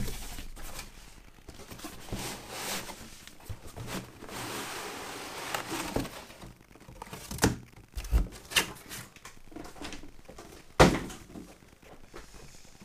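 A cardboard box being opened and handled, with foam packing sheets rustling and sliding, and several knocks of the box against the desk, the loudest near the end.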